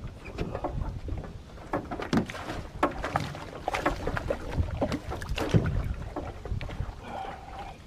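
Irregular knocks, clunks and water splashing in and around a small fishing boat while a hooked fish is played to the side and the long-handled landing net is grabbed and swung out.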